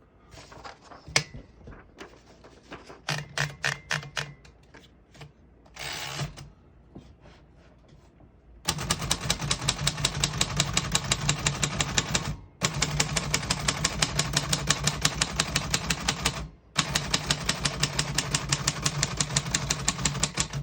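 1949 Royal Arrow portable typewriter: a few scattered mechanical clicks and a short rattling run of clicks at first, then from about nine seconds in a steady fast run of typing, keys striking about seven times a second, with two brief pauses.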